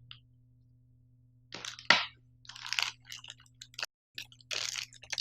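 Crinkling and rustling of packaging in irregular bursts as a USB cable and small accessories are taken out of the box, starting about a second and a half in, with a sharp click near two seconds.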